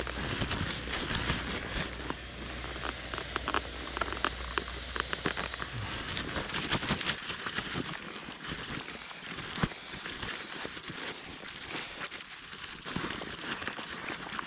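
Nylon pump sack of an Exped sleeping mat crinkling and rustling as it is rolled up to press air through the valve into the mat, with many small crackles.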